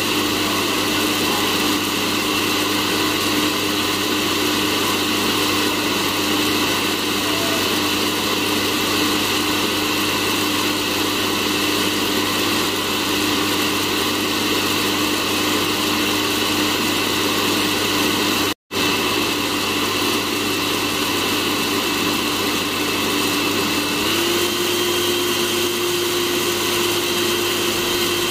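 Cafemasy home hot-air coffee roaster running as it roasts a batch of beans, its fan giving a steady whir. The pitch steps up slightly near the end. The sound cuts out for a split second about two-thirds of the way through.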